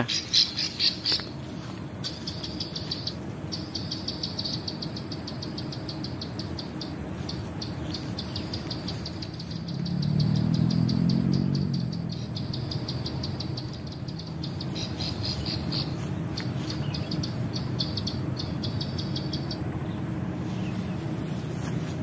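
Recorded call of a female plain prinia (prenjak sawah) played from a handheld MP3 bird-call player as a lure: rapid, high clicking notes strung together in runs with short breaks, stopping near the end. A low engine hum swells briefly about halfway through.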